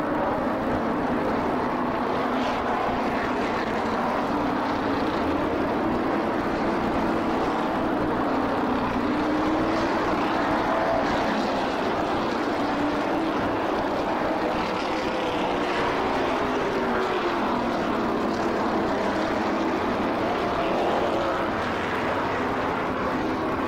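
A field of NASCAR Modified race cars' V8 engines running at speed in a continuous drone, their pitches sliding up and down as the cars go by.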